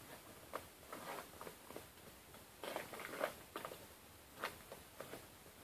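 Paper sticker packets being torn open and the stickers inside handled, giving brief crinkling and rustling at irregular intervals, with the clearest crackles about three and four and a half seconds in.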